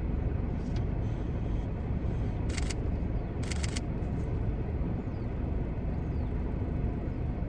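Jeep engine idling with a steady low rumble, and a camera shutter firing in two short bursts of clicks about a second apart, near the middle.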